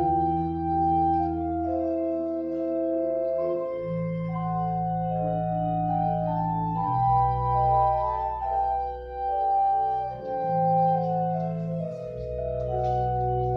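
Church organ playing slow, sustained chords, the bass note changing every few seconds.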